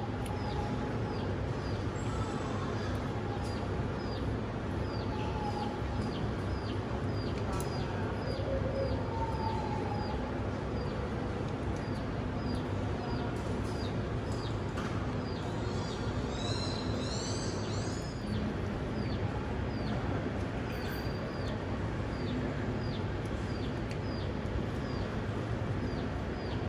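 A bird chirping over and over, a short high falling note about twice a second, with a quick run of higher chirps about two-thirds of the way through, over a steady low hum.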